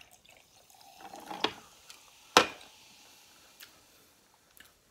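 Ginger ale poured from a can into a glass jar of ice, with a few small clicks, then one sharp knock about two and a half seconds in as the can is set down.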